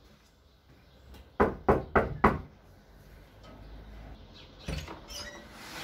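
Four quick knocks on a panelled wooden door, followed near the end by a brief, quieter clatter.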